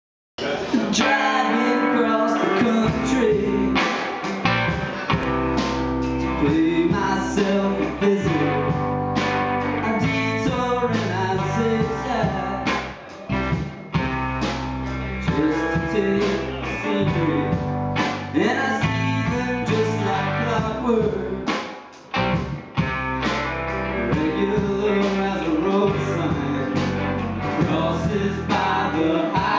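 Rock band playing live: electric guitars and a drum kit, with a male lead vocal sung over them.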